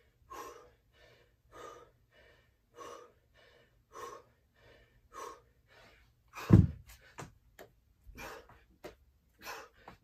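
A man panting hard, one heavy breath a little more than once a second, from exhaustion deep into a long burpee set. About six and a half seconds in, a pair of 25 lb hex dumbbells thuds onto the floor mat, followed by a few quicker, smaller knocks.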